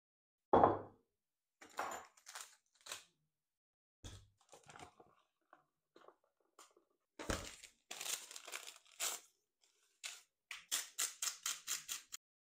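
Paper flour bag rustling and crinkling as flour is poured into a ceramic bowl, with a loud knock about half a second in and another about seven seconds in. Near the end a quick even run of crunching clicks, about six a second, from a small hand grinder twisted over the bowl.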